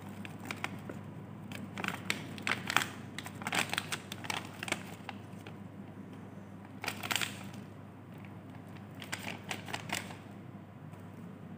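Plastic biscuit packet crinkling as small hard biscuits are shaken out of it into a hand, in irregular spells of rustling and light clicking that die away near the end.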